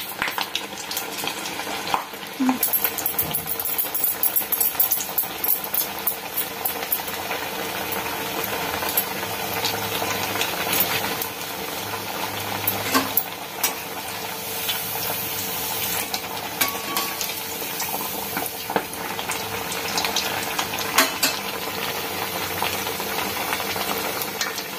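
Maddur vada deep-frying in hot oil in an iron kadai: steady sizzling with scattered crackling pops.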